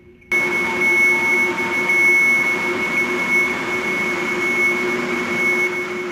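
TIG welding arc struck about a third of a second in, then burning with a steady hiss and a steady high whine.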